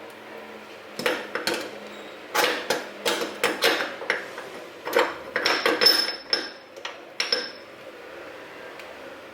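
Dishes and kitchenware clattering and knocking as they are handled and set down: a quick run of hard clinks and knocks, one ringing briefly, then a pause near the end.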